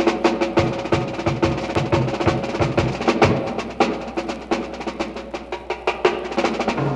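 High school band music from a 1965 record: a percussion-heavy passage of quick drum and block strokes over held band notes, with a lower held note coming in near the end.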